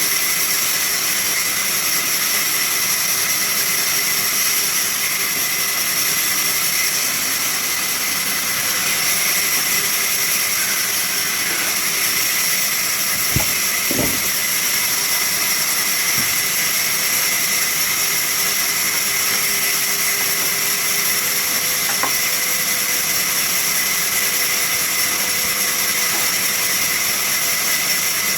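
Sawmill machinery running steadily, a loud even hiss with a high whine, and a couple of sharp knocks about halfway through.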